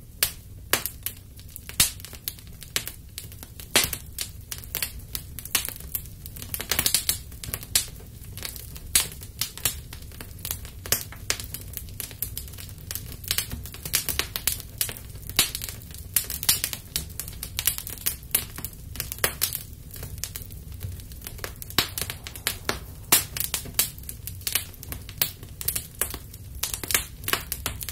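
Small fires of twigs and paper crackling, with dense irregular snaps and pops, over a steady low rumble.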